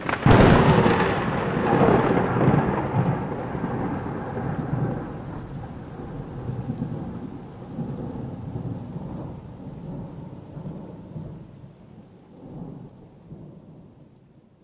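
A sudden loud crash, then a long rumbling noise that slowly fades away over about a dozen seconds.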